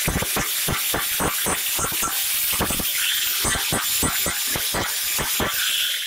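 Angle grinder with its disc on the metal rim of a washing-machine drum, a loud high hiss that stutters irregularly as the disc bites and eases. It cuts off suddenly at the end.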